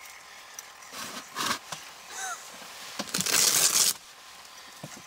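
Rustling and handling noises from an ice angler fighting a hooked whitefish on a short jigging rod. A few short rustles are followed by a louder rustle lasting nearly a second, just after three seconds in.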